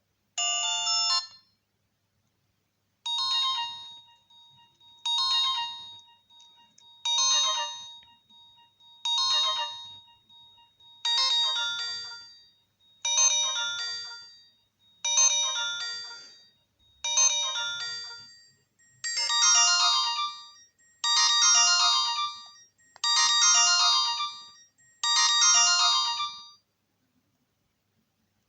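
Nokia 108 mobile phone playing a ringtone through its small speaker. A short burst comes first, then a brief melodic phrase repeats about every two seconds and gets gradually louder.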